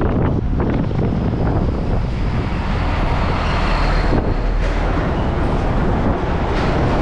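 Wind rushing over the microphone of a moving scooter, mixed with its engine and the road and traffic noise of cars and a large truck close alongside about four seconds in.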